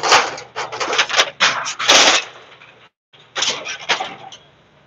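Irregular loud bangs, scrapes and clatter in quick clusters, with a brief total dropout about three seconds in, then a few more knocks that die away.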